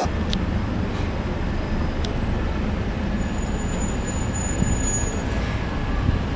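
Steady low rumble with a hiss over it.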